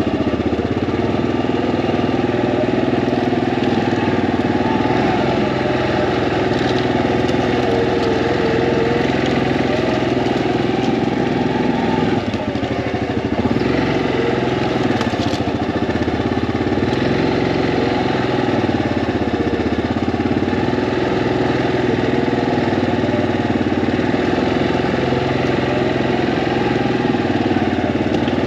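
Yamaha Grizzly ATV's single-cylinder engine running steadily, its pitch rising and falling gently.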